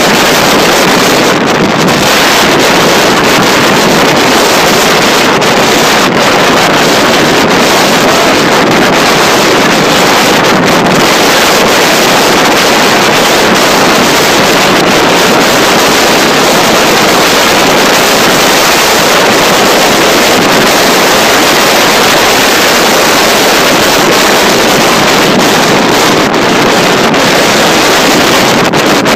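Loud, steady wind noise buffeting the microphone of a camera mounted on a road bike's handlebars while riding at speed.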